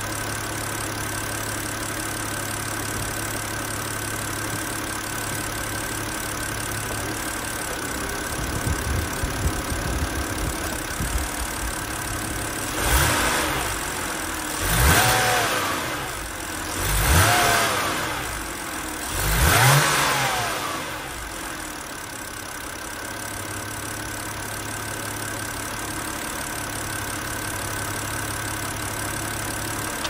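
BMW X3's petrol straight-six idling evenly, revved briefly four times near the middle, each rev rising and falling back to idle. It is running without a misfire, the faulty cylinder-3 ignition coil having been replaced.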